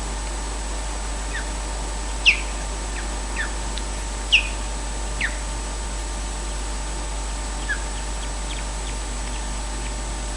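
Osprey calling: a scattering of short, sharp whistles that fall in pitch. The two loudest come about two seconds apart, and fainter ones follow. A steady hiss runs underneath.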